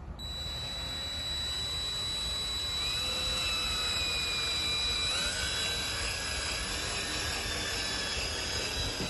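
Power drill driving a stainless steel screw down through a hidden deck-fastener clip into the joist, its motor whining steadily at a slow speed setting, the pitch shifting about five seconds in.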